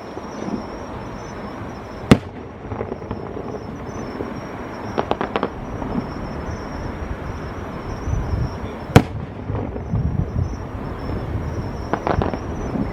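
Aerial fireworks bursting: two sharp, loud bangs, about two seconds in and about nine seconds in, with quick clusters of crackling pops in between and near the end, over continuous low noise.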